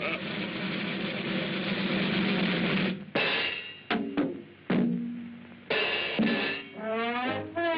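Cartoon orchestral score on an old, narrow-sounding soundtrack: about three seconds of crashing cymbals and drums, then several sharp percussion hits each ringing briefly, and wavering horn notes coming in near the end.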